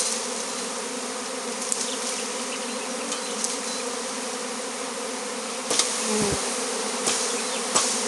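Honeybee swarm buzzing in a dense, steady hum around a straw skep held up to the cluster on the branch. A few sharp knocks sound in the second half.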